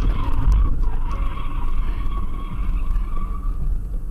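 Car tyres squealing in a long skid, one steady high tone that dies away near the end. Under it is a heavy low rumble of road and wind noise from a dashcam.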